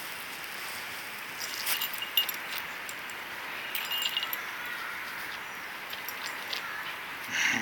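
Light metallic jingling and clinking in two short spells, about one and a half and four seconds in, over steady outdoor background noise.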